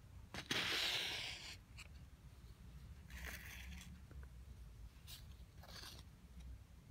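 The edge of a folded sheet of paper scraping and pushing talcum powder across a flat surface. The loudest scrape comes about half a second in and lasts about a second, then softer scrapes follow about three seconds in and twice more near the end.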